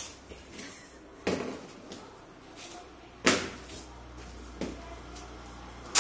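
A few sharp knocks and thuds from a taped cardboard box being handled, spaced a second or two apart, the loudest about three seconds in.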